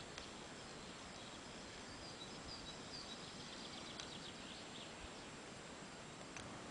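Faint outdoor background hiss with distant birds chirping in the middle, in quick repeated short notes. A small click at the start and another near the end.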